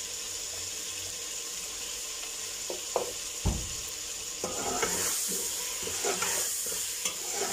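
Chicken masala sizzling in an aluminium degchi, with a sharp knock about three and a half seconds in. In the second half a metal slotted spoon stirs it, scraping against the pot in repeated strokes.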